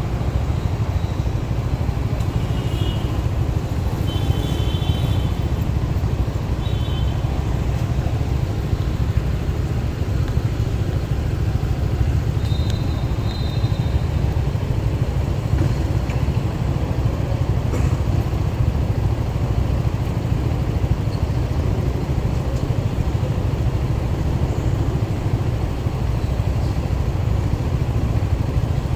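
Motorcycle engine running in slow, stop-and-go traffic, a steady low rumble mixed with the hum of the surrounding cars. Several short high-pitched beeps sound in the first seven seconds and again about thirteen seconds in.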